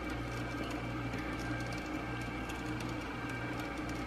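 Brother P-touch label maker printing a label, its motor running steadily with fine, rapid ticking as the tape feeds out.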